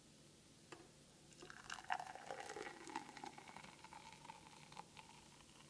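Frothed milk poured from a stainless steel frothing jug into a tall glass: a faint pouring sound from about a second and a half in to near the end.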